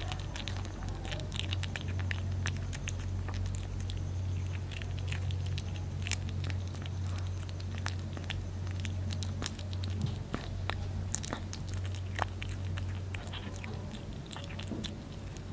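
A kitten chewing boiled small fish, with a run of irregular wet clicks and crunches. A steady low hum lies underneath.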